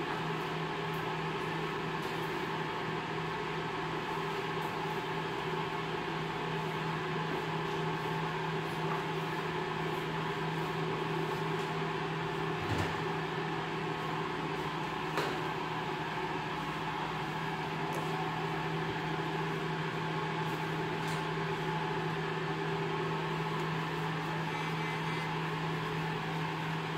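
Steady machine hum with a strong low tone that holds unchanged, and two brief faint knocks around the middle.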